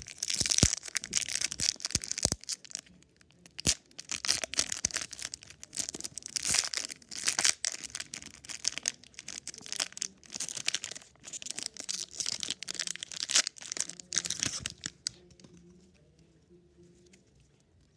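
Foil wrapper of a Pokémon booster pack being torn open and crinkled in the hands, a fast run of rustling, tearing bursts that dies down about three seconds before the end.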